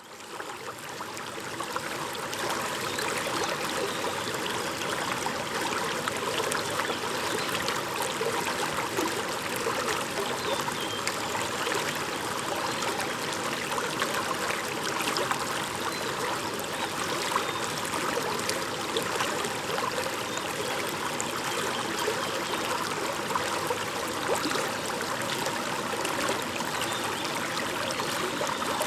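A shallow stream babbling and trickling over stones, a steady rush of water with fine splashing detail, fading in over the first couple of seconds.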